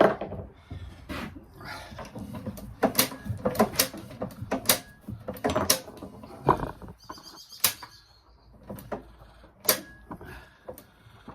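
Metal tool clinks and knocks with short squeaks: a spark plug being unscrewed from the cylinder head of a JAP 5 engine and taken out.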